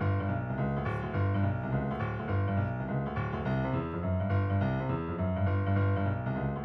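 Background music: keyboard notes over a steady bass.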